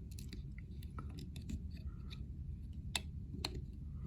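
Light metallic clicks and scrapes, a handful scattered irregularly with the sharpest about three seconds in, as small Leatherman accessory parts and tiny screws are handled to fit them back on. A steady low hum runs underneath.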